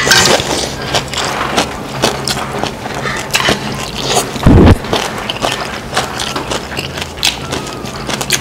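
Eating sounds: chewing, with utensils clicking and scraping on dishes many times over, and one loud low thump about halfway through.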